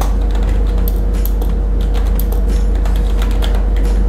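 Typing on a RedGear Blaze 3 semi-mechanical membrane keyboard: irregular key clicks over a steady low hum.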